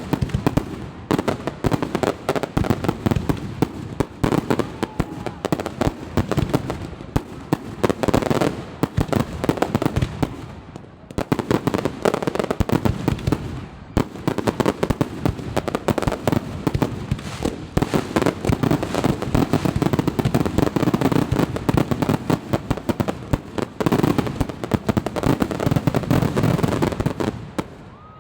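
Aerial fireworks display: a dense, continuous barrage of shell bursts and crackling, with a brief lull partway through and a sudden stop at the end.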